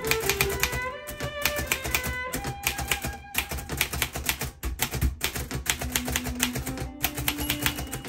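Typing on a Royal P portable manual typewriter: keys struck in quick, uneven succession, each one a sharp clack, over background music.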